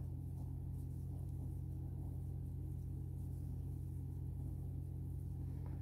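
A steady low hum with nothing else standing out; no crochet-hook or yarn sounds are heard.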